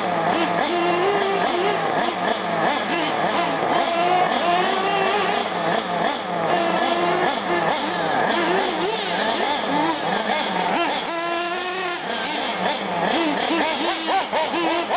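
Several small nitro engines of 1/8-scale R/C trucks and buggies running on a dirt track. Their high pitch rises and falls constantly with the throttle, with a quick rev near the end.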